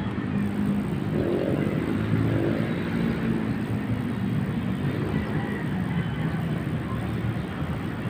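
Steady rumble of city road traffic, with a low, even drone of vehicle engines and tyres.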